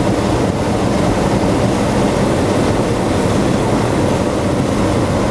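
Hot air balloon's propane burner firing in one long continuous blast: loud and steady, a hiss over a deep rumble.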